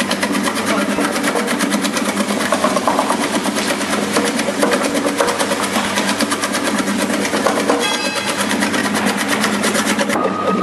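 Electric double-head vegetable cutting machine running while shredding carrots into strips: a steady motor hum under a rapid, even clatter from the cutting head. Near the end a steady high whine joins in.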